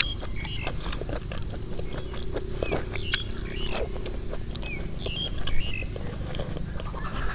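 Close-miked chewing, with wet mouth smacks and small clicks, as a mouthful of food is eaten. Short falling chirps of a bird come and go faintly in the background.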